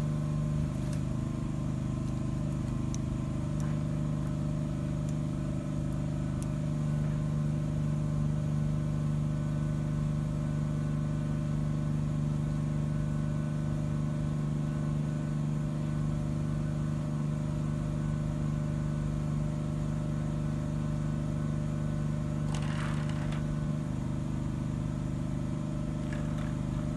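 Electric roller shutter garage doors running down to close, their motors giving a steady, even hum with a few faint clicks and rattles.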